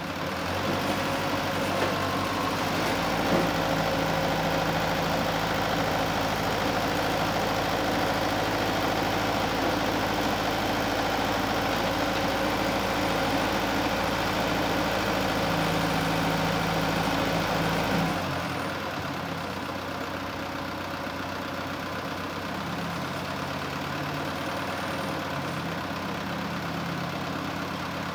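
Branson 4720 compact tractor's diesel engine running steadily while the front loader raises and lowers its bucket. It runs louder at first, then drops to a quieter, lower idle about two-thirds of the way through.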